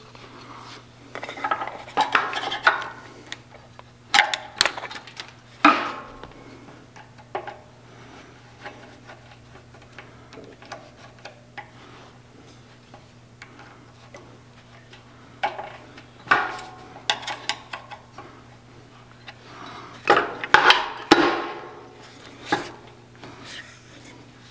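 Metal hand tools clinking and clanking in irregular clusters of knocks with short ringing, as snips and a screwdriver are handled on the fittings of an air compressor, over a faint steady low hum.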